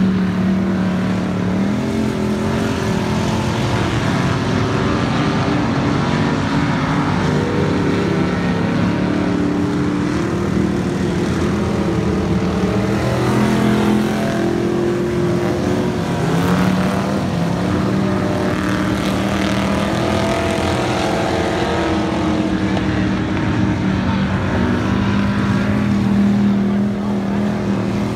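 Several dirt-track race cars' engines running together as the field laps the oval, loud and continuous, their pitch rising and falling over several seconds as the cars accelerate and slow through the turns.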